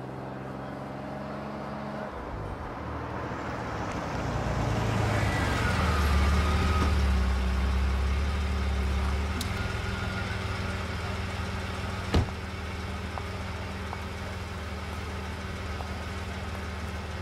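A car engine running as the car rolls slowly onto a paved driveway, growing louder as it draws near and then settling to a steady idle. About twelve seconds in there is one sharp knock, like a car door shutting.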